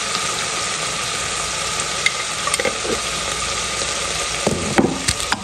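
Oil with tomato paste, ginger-garlic paste and ground spices sizzling steadily in a stainless steel pot, with a few light knocks near the end.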